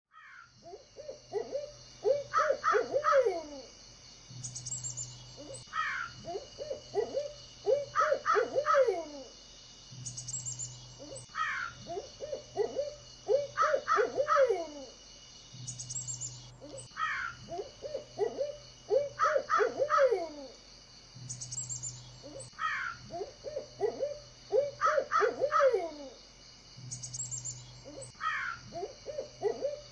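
Bird calls in rapid groups of arched notes with quick falling sweeps. The same phrase repeats about every five and a half seconds over a steady high-pitched drone.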